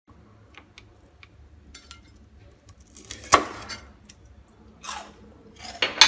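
Chef's knife cutting through crispy roast pork belly crackling on a wooden chopping board. Crunches of the crisp skin and knocks of the blade come several times, the loudest about halfway through and again at the very end.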